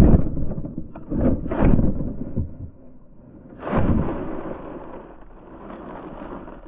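Large RC monster truck hitting the ground: several heavy thumps over about four seconds, then a fading rumble as it settles.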